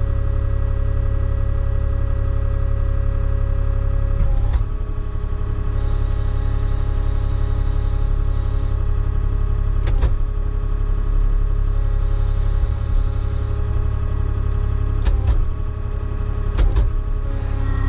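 Avant 860i compact loader's diesel engine running steadily as its telescopic boom and tree grabber are worked, the engine note shifting about 4.5 seconds in. Two spells of high hissing and several sharp knocks come over the engine.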